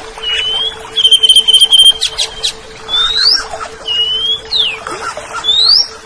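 Greater green leafbird (cucak ijo) singing: a run of clear whistled notes, most sliding upward, with a fast trill about a second in followed by a few sharp clicks. A steady hum runs underneath.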